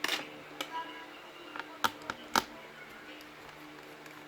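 Sharp clicks and taps of a screwdriver and small screws against a laptop's plastic case during disassembly: a cluster right at the start, then a few single clicks, the loudest about two and a half seconds in.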